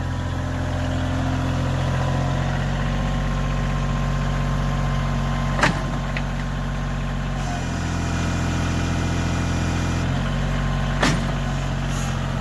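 Tractor engine running steadily while its pallet forks lift a load. The engine note shifts for a few seconds in the middle, and two sharp clanks come about five and a half and eleven seconds in.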